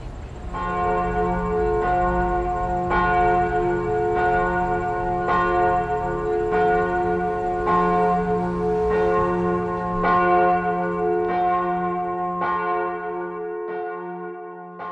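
A large church bell tolling, about a dozen strokes a little over a second apart, each ringing on into the next, fading near the end.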